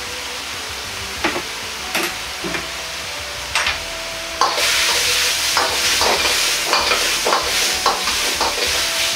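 Broth simmering in a wok with a steady hiss while a metal ladle clinks against the wok a few times. From about four and a half seconds the ladle stirs the contents, the sizzle grows louder and the ladle clinks and scrapes on the wok over and over.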